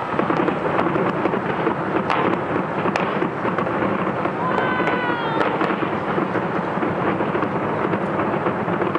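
Taipei 101 New Year's Eve fireworks barrage heard from a distance: a dense, continuous rumble of many overlapping bursts, with crackling and a few sharper bangs.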